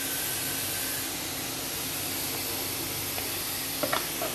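Grated carrot and cabbage sizzling steadily in hot oil in a small non-stick pan, stirred with a spatula. Near the end a few sharp clicks as chopped green capsicum is scraped from a plastic bowl into the pan.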